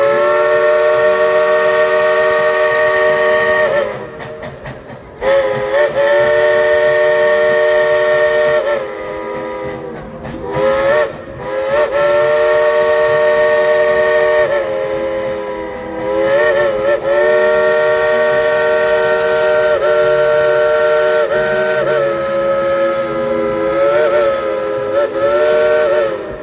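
Steam locomotive No. 70 "Cinderella" blowing its steam whistle real loud: about five long blasts with a few short toots between, several notes sounding together as one chord that bends briefly as the valve opens and closes, over a hiss of steam.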